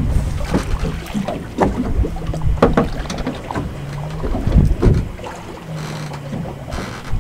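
Water lapping and slapping against the hull of a fishing boat at rest offshore, with wind buffeting the microphone. A few short knocks and a faint low hum come and go.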